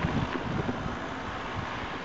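Wind buffeting the microphone over a steady low rumble, with irregular low thumps and crackles.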